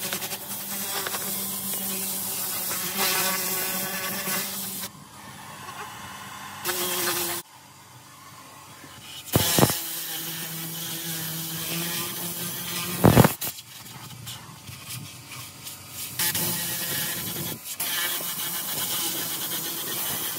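Detailing brush scrubbing over the plastic of a truck's centre console and dash controls, over a steady machine hum. The sound drops away twice, and there are two sharp knocks about nine and a half and thirteen seconds in.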